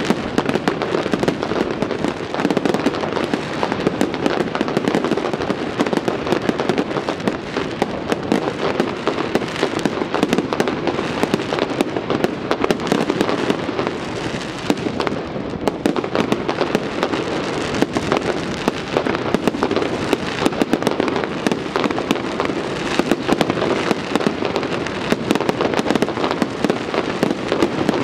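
A dense, continuous barrage of fireworks: rapid overlapping bangs and crackling with no pause, easing only slightly for a moment about halfway through.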